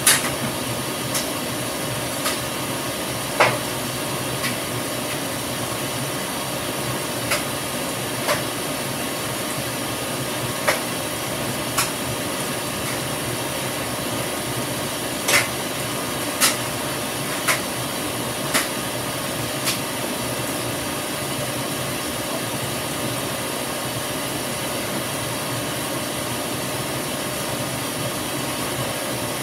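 Top-loading washing machine filling, water rushing steadily into the tub as an even hiss. Sharp clicks come about once a second, in runs, through the first twenty seconds, then stop.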